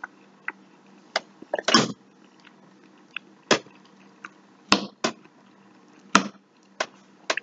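A man chewing a mouthful of food, with irregular wet smacks and mouth clicks, about a dozen over several seconds.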